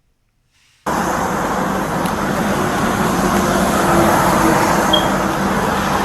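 Roadside highway traffic noise, a steady rushing roar of passing vehicles with a low steady hum, starting abruptly about a second in.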